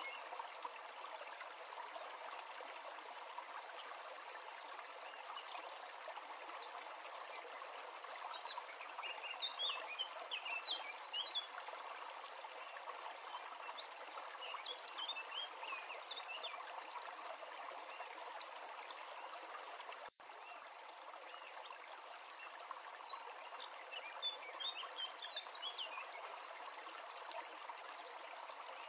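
Small birds chirping and twittering in short spells every few seconds over a steady outdoor hiss. The sound cuts out for an instant about twenty seconds in.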